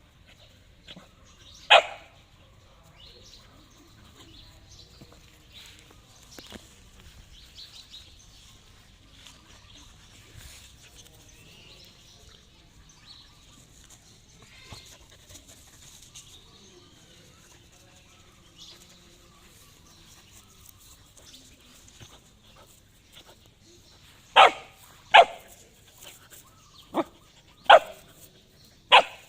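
A dog barking in single sharp barks: one about two seconds in, then after a long lull five barks in quick succession near the end.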